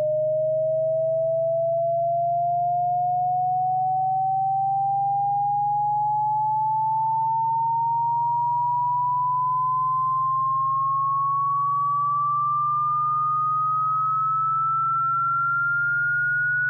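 Electronic cat-repellent tone: a single pure synthesized tone gliding slowly and steadily upward in pitch, over a steady low hum.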